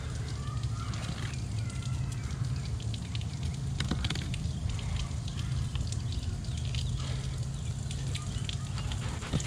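Fillet knife working along a mutton snapper, giving scattered soft scrapes and small clicks as it cuts flesh and scales, over a steady low rumble.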